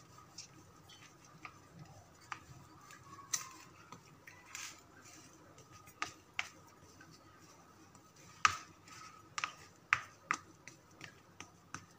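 Plastic spoon pressing and smoothing a crumbly semolina-and-sesame toffee mixture into a metal tray, with irregular light clicks and taps of the spoon against the mixture and tray. A few sharper clicks come in the second half.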